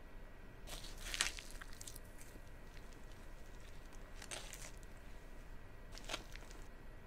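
Kitchen knife sawing into a plastic doll's head: three bursts of crunching, tearing strokes, the first about a second in and the loudest, then two shorter ones past four seconds and near six seconds.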